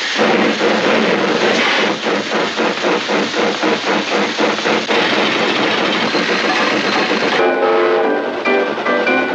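Steam-train sound effect: a steady rhythmic chuffing, about three strokes a second. About seven and a half seconds in it gives way to a pitched, chord-like train whistle.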